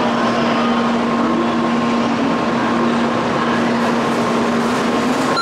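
Shinkansen train standing at the platform, running its onboard equipment: an even rumble with a steady low hum.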